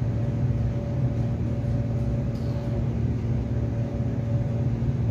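Steady low mechanical hum with a faint whine, unchanging throughout, like a room's air-conditioning unit running. A few faint soft ticks of hands handling the paper mask and sticker.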